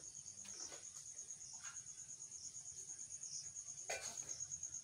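An insect trilling steadily in the background, a high, rapidly and evenly pulsing note. A single sharp click comes about four seconds in.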